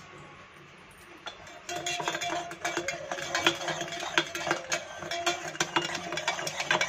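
A metal spoon stirring syrup into milk in a stainless steel tumbler, clinking quickly and repeatedly against the sides so the tumbler rings. The stirring starts about a second and a half in.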